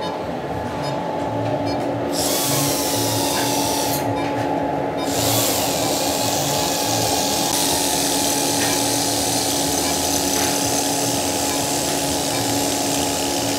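Dental polishing handpiece with a prophy cup running against a dog's teeth, polishing them after scaling: a steady machine whine with a high air hiss that starts about two seconds in, stops briefly around four seconds, then runs on.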